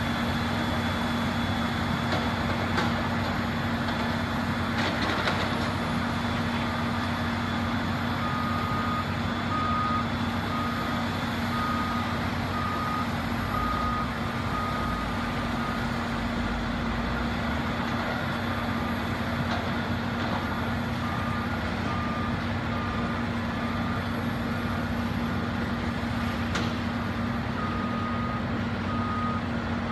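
Heavy earthmoving machines, wheel tractor-scrapers and bulldozers, running steadily at a distance. A backup alarm starts beeping about a quarter of the way in and keeps going at about one beep a second.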